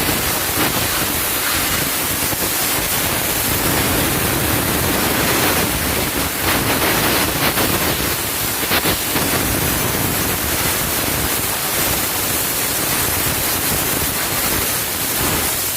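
Loud, steady rushing noise with no distinct tone, cutting off abruptly at the end.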